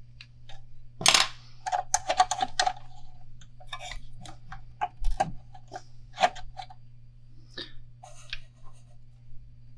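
Light clicks and small taps of hands and tools handling thread on a fishing rod blank in a hand wrapper, busiest a second or two in, over a steady low hum.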